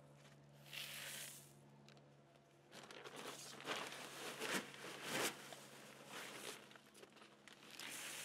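Perlite granules being poured and scooped by hand into a plastic Dutch bucket, in several bursts: a short one about a second in, a longer run of pouring in the middle, and another pour from a bag near the end.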